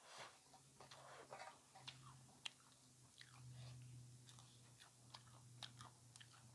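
A person chewing crisp food, likely the last bite of papad, with faint irregular crunches and small crackling clicks.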